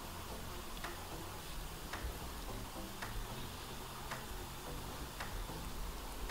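A clock ticking steadily and faintly, a little under two ticks a second.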